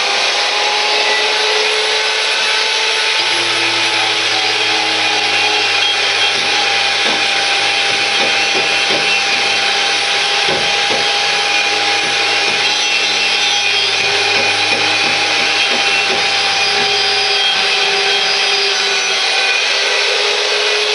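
Electric power tool stripping paint off a metal bracket. The motor runs steadily, its pitch wavering as it loads up, under a continuous scraping rasp of the tool against the metal.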